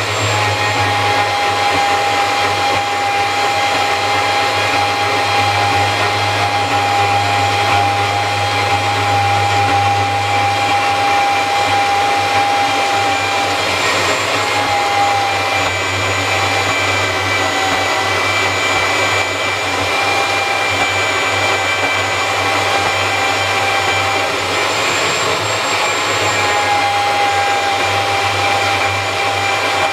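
Makita portable band saw running and cutting out a knife blade profile: a steady motor noise with a whine whose pitch wavers slightly as the blade is fed.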